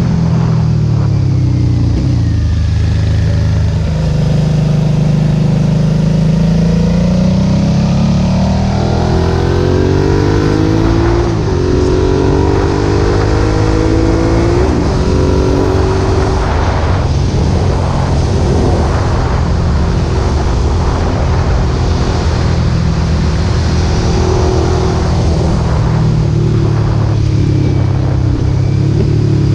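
Suzuki SV650's V-twin engine through an aftermarket Roadsitalia exhaust with its dB-killer fitted, pulling under load: the note climbs as it revs, then drops back at each gear change, several times over.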